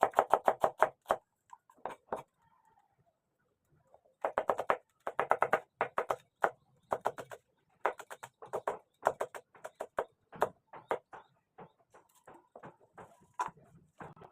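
Fast, even runs of knocking strokes from a kitchen utensil, about ten a second, in three bursts with short pauses between.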